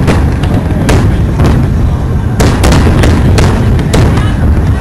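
Aerial fireworks shells bursting in rapid succession, a sharp bang about every half second with some close together, over a steady low rumble.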